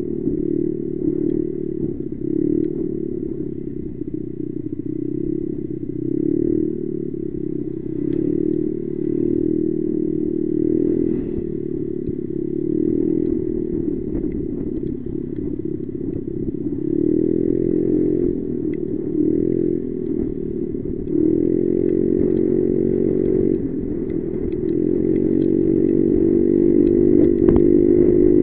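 Motorcycle engine running under way, heard from on the bike, its note rising and falling repeatedly with the throttle, then climbing steadily near the end as it accelerates.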